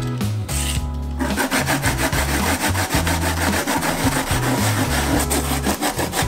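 Peeled daikon radish grated on a plastic box grater: quick, evenly repeated scraping strokes start about a second in and keep going, over background music.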